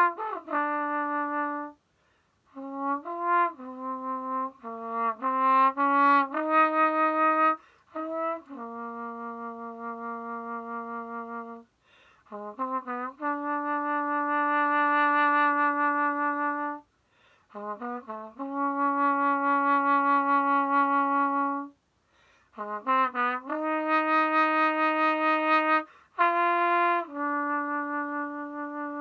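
Unaccompanied trombone played with a metal straight mute, performing a slow sonatina movement: short slurred figures lead into long held notes a few seconds each, in phrases separated by brief pauses for breath.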